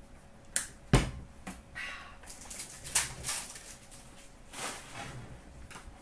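Hockey trading cards being handled and sorted by hand: a few sharp snaps and slaps of cards, the loudest a knock on the tabletop about a second in, with rustling of the cards between them.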